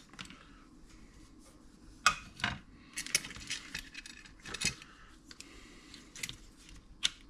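Small metal parts and tools clinking and tapping as they are handled on a workbench: about half a dozen short, sharp clicks, scattered and irregular.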